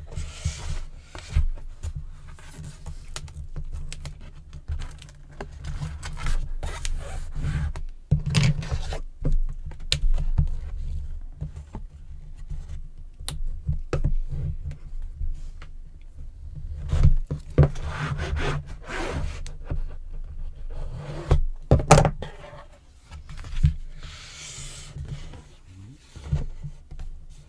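Chipboard box panels being handled and pressed together on a desk: rubbing and scraping of board and paper, with scattered short knocks as the pieces are moved and set down.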